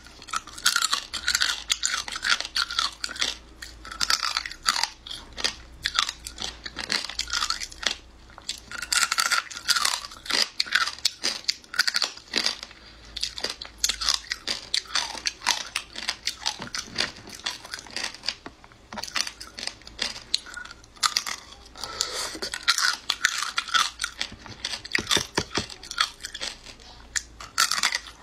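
Close-up eating sounds of a person biting and chewing marinated shrimp: wet chewing with clusters of quick, crisp crunches, coming in bouts with brief pauses between.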